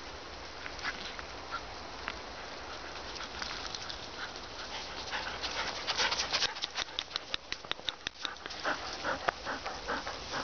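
Dog panting close by, a quick run of short breaths that grows louder from about halfway through as the dog comes right up close.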